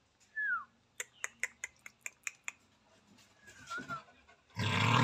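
Newborn puppy squeaking twice, each a short thin whimper falling in pitch, while it nurses on its mother. A quick run of sharp clicks comes between the squeaks, and a loud noise burst starts near the end.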